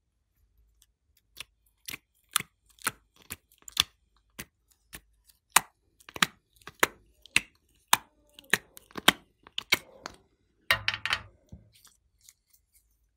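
Glossy slime peeled out of the cells of a silicone ice-cube tray and squeezed by hand: a run of sharp sticky pops and clicks, two or three a second, with a denser wet crackle about eleven seconds in.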